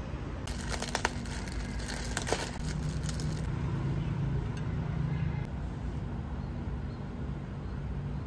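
Crinkling and crackling from handling food and kitchenware for about three seconds, with a couple of sharp clicks, then cutting off abruptly, over a steady low hum.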